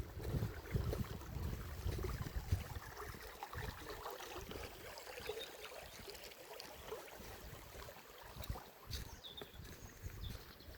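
River water gurgling unevenly over stones, a running patter of small bubbling notes, with low rumbles in the first few seconds.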